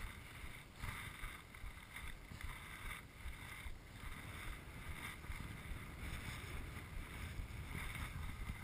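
Wind rumbling on an action camera's microphone, with faint scuffing of boots or board on snow, and one sharp knock at the very end.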